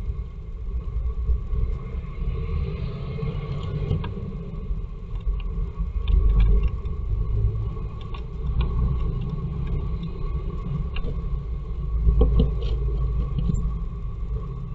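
Steady low rumble on a nest-box camera's microphone, with faint scratchy clicks from a Eurasian blue tit's feet and movements on the bare wooden floor of the box as it visits, clustered about halfway through and again near the end.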